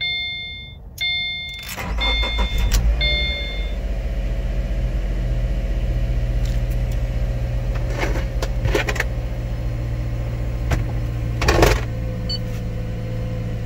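Dashboard warning chime beeping about once a second, then the 2015 Subaru Forester's flat-four engine cranks and starts about two seconds in. It settles into a steady fast idle around 2,000 rpm, with a few sharp clicks later on.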